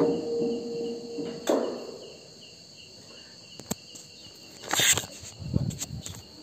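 The last held note of the call to prayer through the mosque loudspeaker cuts off about a second and a half in. Steady chirring of crickets remains, broken by a few clicks and knocks, the loudest a short burst of noise about five seconds in.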